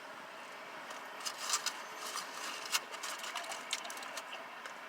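Someone eating a cheesesteak-style burger close to the microphone: a run of small irregular clicks and crinkles from the food and its wrapping, starting about a second in and tailing off near the end.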